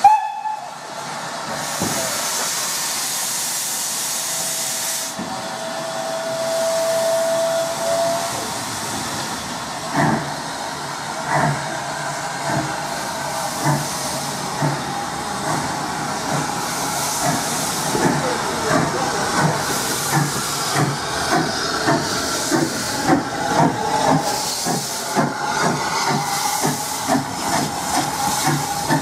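Steam hissing from SECR H class tank locomotive No. 263, then a single steady whistle about three seconds long. The engine then pulls away, its exhaust chuffs settling into a regular beat of about one and a half a second, with clanking from the train.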